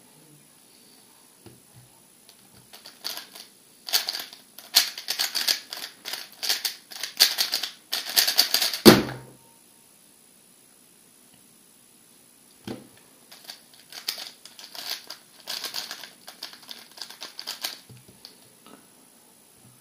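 A MoYu RS3 M 2020 3x3 speedcube being turned very fast in a solve: a rapid clatter of plastic layer clicks for about five seconds that ends in a thump near the middle as the cube is set down on the timer mat. After a few seconds' gap comes another spell of quick turning.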